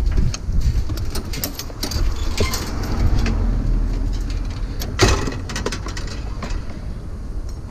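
Low steady rumble with scattered clicks and knocks, and one louder knock about five seconds in.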